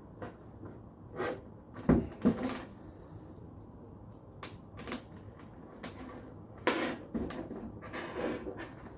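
Cable connectors and the plastic printer housing being handled as power and USB cables are plugged into the back of a thermal label printer: scattered clicks, knocks and cable rustles. The loudest are two knocks about two seconds in.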